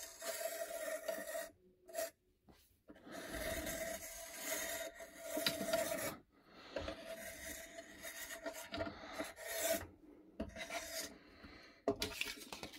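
Circle cutter's blade scraping round through paper as it is pressed and turned, in several strokes with short breaks between them.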